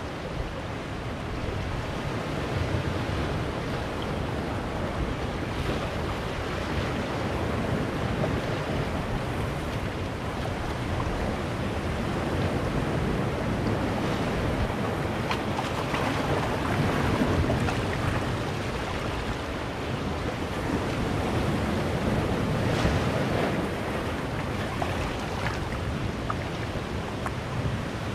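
Sea surf washing in and out among large boulders on a rocky shore: a continuous rushing wash that swells as waves come in, loudest about halfway through and again some seconds later.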